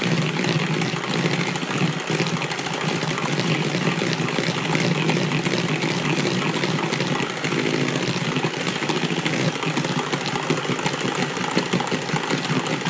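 Electric two-beater hand mixer running steadily, its beaters whisking egg yolks, sugar and cornstarch in a plastic bowl until the yolks turn pale.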